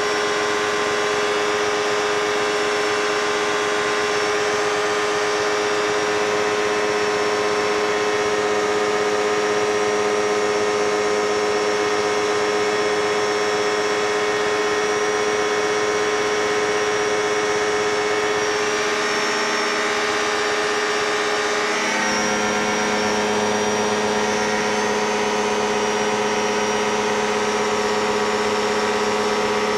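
Light aircraft's piston engine and two-blade propeller running steadily in flight, a constant multi-toned drone over a layer of hiss. About twenty-two seconds in, the engine note shifts slightly and its low tone grows stronger.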